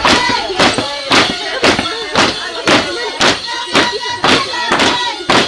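Andean huaylia music: a high, wavering melody with voices over a steady, heavy beat of about two thumps a second.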